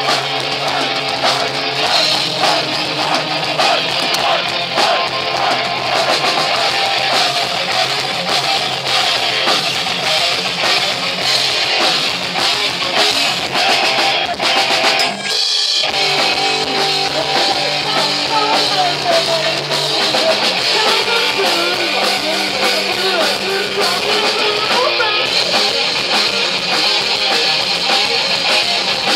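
Rock band playing with electric guitars and a drum kit, with a brief break about halfway through.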